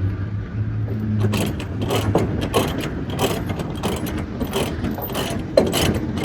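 A cargo-securement ratchet being cranked to tighten a tie-down, its pawl clicking rapidly over and over. A low steady hum runs underneath.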